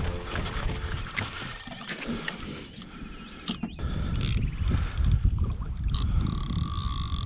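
Fishing reel being wound in while a hooked carp is played, its mechanism clicking and whirring, over a low rumble.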